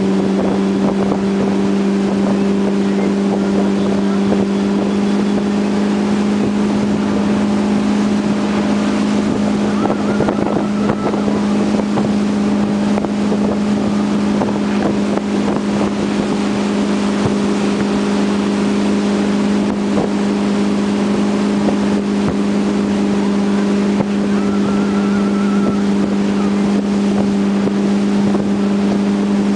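Tow boat's engine running steadily at towing speed, one unchanging droning pitch, with wind noise on the microphone and rushing water.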